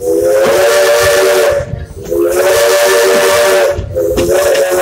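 A steam locomotive's three-chime whistle blowing: two blasts of about a second and a half each, then a third starting about four seconds in, each a chord of three steady tones over a hiss of steam.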